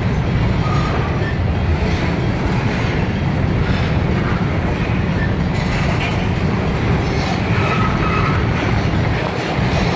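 Freight train of covered hopper cars rolling past close by: a steady rumble of steel wheels on the rails, with a couple of brief faint wheel squeals, one about a second in and one near the end.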